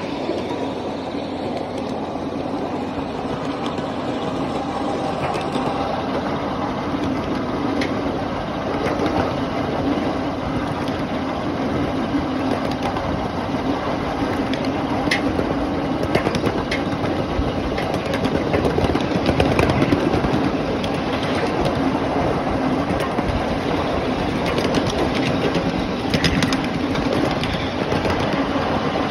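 Ride-on miniature railway train rolling along its track, heard from one of its riding cars: a steady rumble and hum with scattered sharp clicks.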